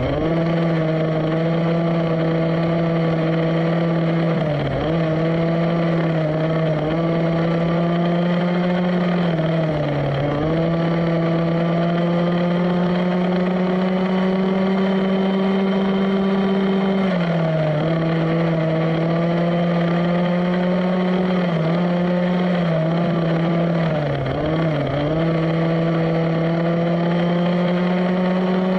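Small single-cylinder two-stroke petrol engine of a 1/5-scale Rovan Baja RC buggy running at steady high revs, its pitch dipping briefly several times as the throttle is eased and then picked up again.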